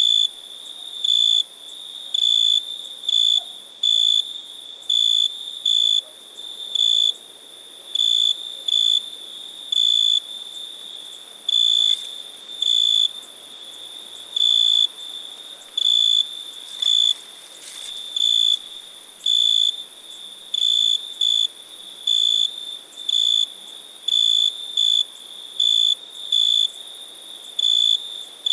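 A cricket chirping: short, high-pitched chirps repeating about one or two a second, often in pairs, over a faint steady high hiss.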